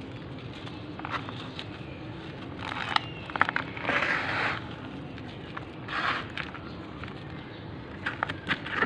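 A dry, gritty block crumbling and crunching between the hands, with crackly clicks as it breaks. The biggest bout comes about three to four seconds in, another near six seconds, and a run of sharp crackles near the end.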